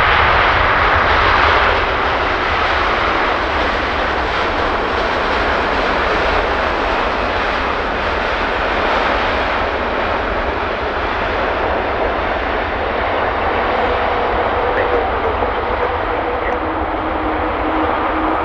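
Jet engines of an arriving Boeing 787-9 Dreamliner: a loud, steady rush that is strongest at first and eases slightly after about two seconds, with a faint steady whine joining near the end.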